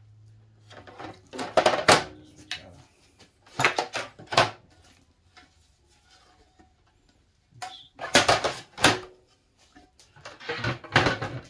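Metal track-saw guide rails being handled and slid against each other on a table: four short bouts of metal clatter and scraping with quiet gaps between.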